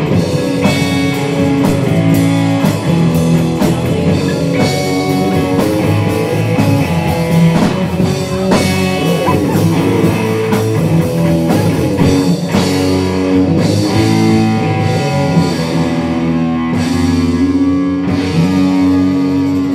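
Rock band playing live: guitar over bass and a drum kit, steady and loud throughout.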